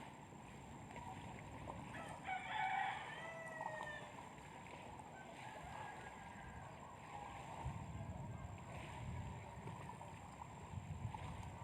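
A rooster crowing once, about two seconds in, over a low background rumble that grows stronger in the second half.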